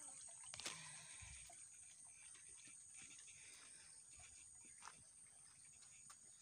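Quiet tropical forest ambience: a faint, steady, high-pitched insect drone, with a few soft knocks from footsteps or handling, the clearest about half a second in.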